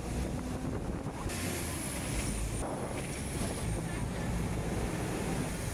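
Hong Kong double-decker tram running along its tracks, heard from on board: a steady low rumble with wind on the microphone. In the middle, a faint thin high squeal falls slightly in pitch.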